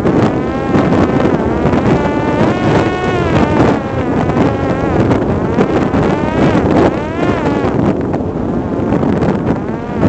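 Parrot Disco's electric motor and propeller whining, its pitch rising and falling again and again, over heavy wind noise buffeting the microphone.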